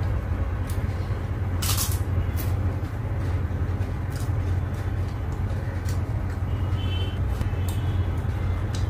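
Crisp fried papad (poppadom) being bitten and chewed: scattered short sharp crunches, the loudest about two seconds in, over a steady low rumble.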